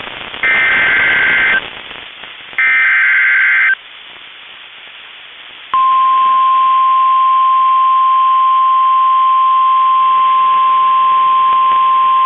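NOAA Weather Radio Emergency Alert System tones: the last two of three SAME header data bursts, each a harsh two-tone warble lasting about a second with radio hiss between them. About six seconds in, a steady single-pitch warning alarm tone starts abruptly and holds, marking the start of a new warning broadcast.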